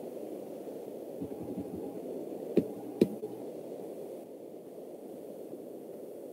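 Steady low hiss and hum of an open microphone over an online video call, with a few soft thumps a little over a second in and two sharp clicks about half a second apart near the middle.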